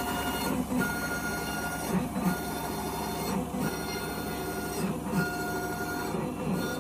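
Sirona CEREC MC X dental milling unit milling a crown under water spray: a steady whine over a wet hiss, which drops out briefly several times as the milling tools pause and re-engage.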